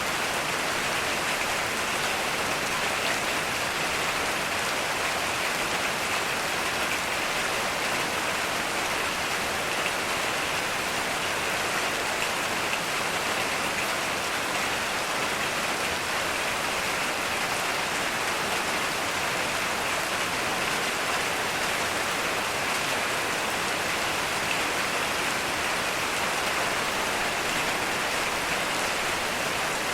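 Heavy rain falling steadily, a dense even hiss of drops with no thunder.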